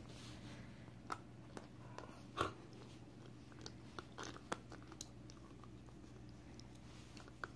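Dog gnawing on a chew bone held in a person's hand: scattered crunching clicks of teeth, the loudest a little over two seconds in, over a faint steady hum.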